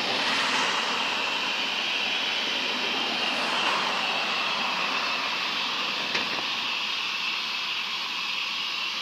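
Waste incineration plant emitting a consistent high-pitched squeal, like steam being vented, over a steady hiss.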